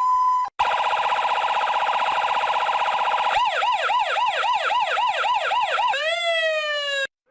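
Electronic emergency-vehicle siren stepping through its tones: a brief steady high note, then after a short break a very rapid pulsing warble, then a yelp of about four quick up-and-down sweeps a second, then a single rising wail that cuts off suddenly.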